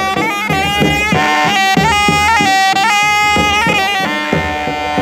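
A traditional Hausa wind pipe with a shrill, reedy, bagpipe-like tone plays a wavering melody over an hourglass talking drum whose strokes bend down in pitch. About four seconds in, the pipe settles on a long held note.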